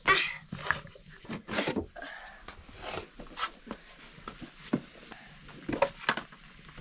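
Irregular sharp knocks and clicks, one or two a second, the loudest right at the start, with faint hiss between them.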